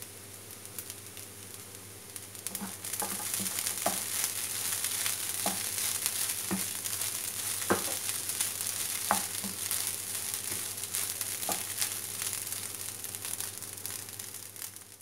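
Fried rice sizzling in a non-stick pan as it is stir-fried with a wooden spatula. About ten soft, irregular knocks of the spatula against the pan sound over the sizzle. The sizzle grows louder about three seconds in.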